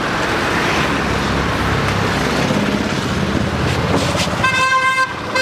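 Steady road traffic noise, then a vehicle horn sounds once, a steady note lasting about a second, near the end.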